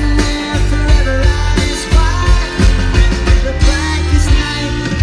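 Live rock band playing loudly, with a male lead singer over drums and electric guitar.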